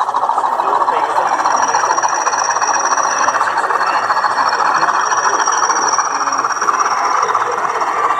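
OO gauge model train running along the track: a steady buzzing rattle of motor and wheels on rail, with a thin high whine that comes and goes twice.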